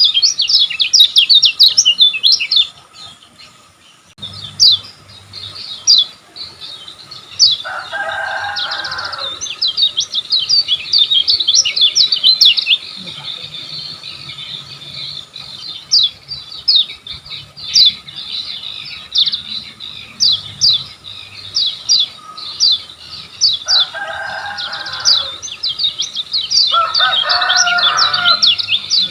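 Kecial kuning (lemon-bellied white-eye) singing: long, rapid runs of short, high chirping notes, broken by a pause of a second or two near the start.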